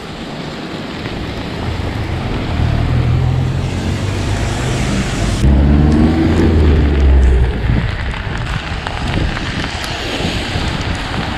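Heavy rain and wind buffeting the microphone while cycling in a downpour. A passing vehicle's engine and tyre noise swells to its loudest a little past halfway, then fades.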